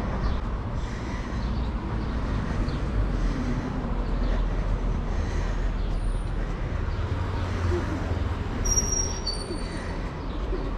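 City street traffic: a steady rumble of passing vehicles, heaviest about seven to eight seconds in, with a few short high-pitched squeaks near the end.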